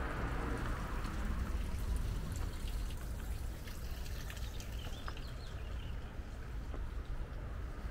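Water running and trickling over a steady low rumble.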